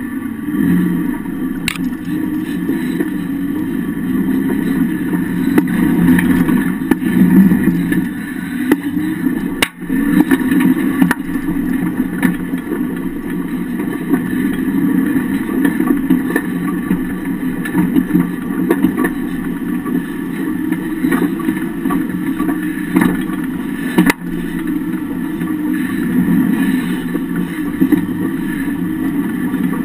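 A vehicle engine runs steadily, heard from under the chassis near the rear axle. A few sharp clicks come through about two, ten and twenty-four seconds in.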